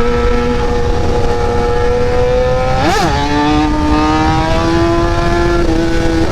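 Kawasaki ZX-10R inline-four sportbike engine running under way, its pitch climbing slowly. About three seconds in it gives a quick rev that rises and falls, then settles at a lower pitch and climbs again, as on a gear change.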